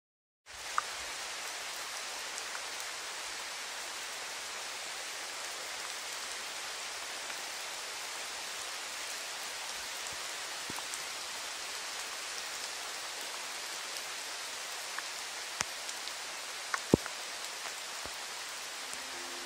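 Steady rain falling on trees and foliage, with a few sharp drips tapping close by, the loudest near the end. The hiss cuts in abruptly about half a second in.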